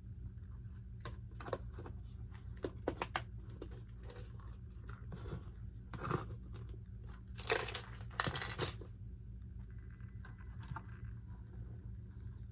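Plastic packaging crinkling and rustling as small parts are handled, with scattered light clicks and taps. The two loudest rustles come a little past halfway. A steady low hum runs underneath.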